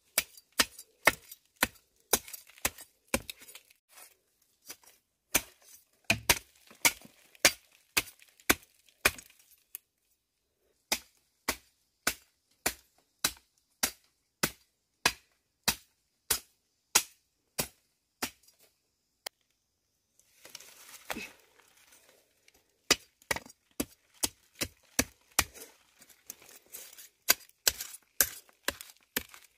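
A hand tool strikes over and over in a steady rhythm, a little under two sharp blows a second, like chopping or digging. The strikes pause briefly about ten seconds in, and a stretch of scraping, rustling noise comes around twenty-one seconds.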